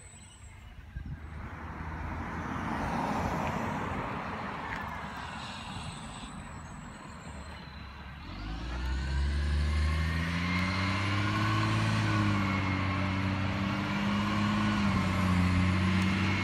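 Garbage truck's diesel engine approaching, coming in about halfway through and growing louder, its pitch rising and falling as it drives up the street. Before it there is a broad rushing noise.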